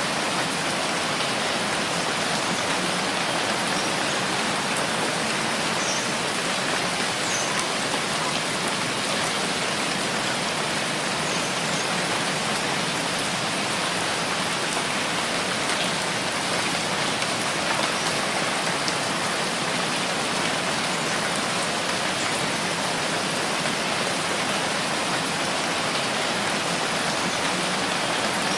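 Steady rainfall: an even, unbroken hiss of rain with faint individual drop ticks.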